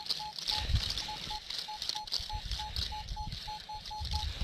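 Minelab Equinox 800 metal detector sounding a string of short beeps at one steady pitch, about three to four a second and unevenly spaced, stopping near the end. It is a target signal that doesn't sound very good: likely a poor or junk target.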